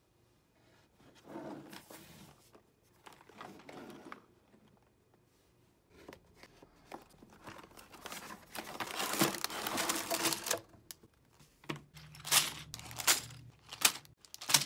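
A cardboard LEGO set box being opened by hand and the plastic bags of bricks inside crinkling and rustling as they are taken out, in irregular bursts. Several sharp taps near the end.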